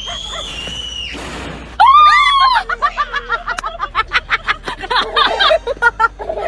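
A high-pitched voice gives a sudden loud scream about two seconds in, followed by rapid, high chattering that sounds like laughter.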